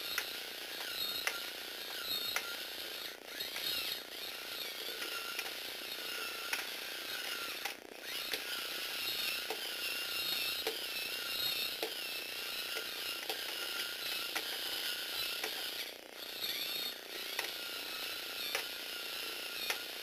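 A small electric motor in a Tamiya four-speed crank gearbox runs a Lego Technic walking robot with a steady whine. Plastic gears and crank legs clatter and click against each other. The sound breaks off briefly twice.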